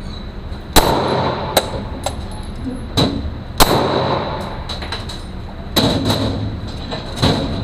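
A Glock 17 9mm pistol fired semi-automatically, one shot per trigger pull: about six sharp shots spaced a second or more apart, each followed by a short ringing echo.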